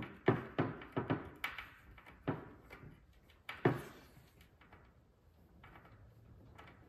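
A screw being driven by hand with a screwdriver through a metal drawer-slide rail into wood: irregular sharp clicks and creaks as it turns, several in the first two seconds and the loudest about three and a half seconds in, then only a few faint ones.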